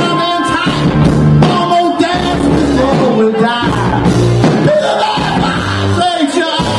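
Live rock band playing: electric guitars, bass and drums, with a lead vocal singing short phrases over them.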